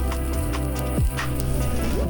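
Background music with a heavy bass line and a deep drum hit that drops in pitch, about a second in.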